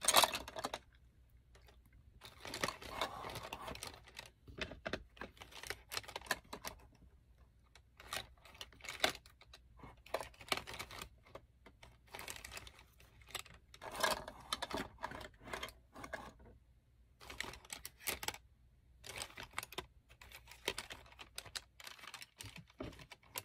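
Irregular light clicks and clatter of makeup brushes and small cosmetic items being handled and rummaged through.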